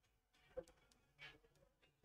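Near silence: room tone with two faint, brief clicks.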